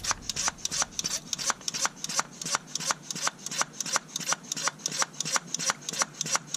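Hand pump of a cooling system pressure tester worked in quick, even strokes, about three a second, each stroke a short click and hiss. It is pressurising a Ford 6.0 diesel's cooling system through the degas reservoir cap, toward about 15 psi, to find a coolant leak.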